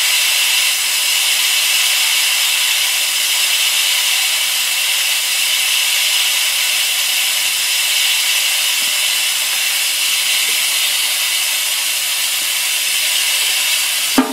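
Compressed air hissing steadily from an air compressor tank's open drain valve, spraying out the water that has built up in a tank never drained in years. A brief knock near the end.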